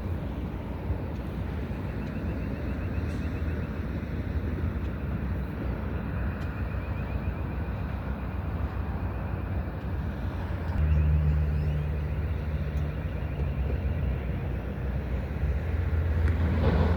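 Low, steady engine rumble from a motor vehicle with wind noise; a stronger, deeper engine hum comes in about eleven seconds in and carries on.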